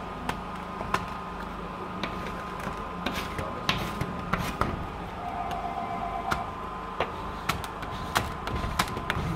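Plastic squeegee working along the bottom edge of wet window film on glass, pressing the water out: scattered sharp clicks and taps, with a brief squeak about five seconds in, over a steady background hum.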